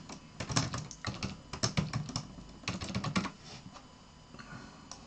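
Typing on a computer keyboard: a quick run of keystrokes for about three seconds, entering a short command.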